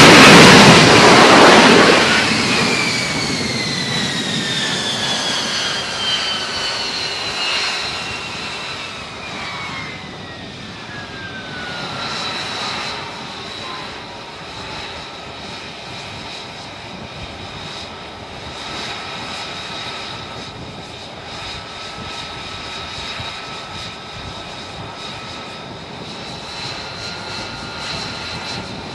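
F-35B jet engine and lift fan running very loud as the jet hovers and sets down vertically. The turbine whine then falls in pitch over about ten seconds as the engine is throttled back, and settles into a steady high whine at idle on the deck.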